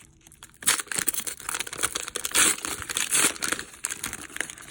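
Crinkling and tearing of a trading-card pack's wrapper as it is pulled at and ripped open, starting about half a second in with many small crackles.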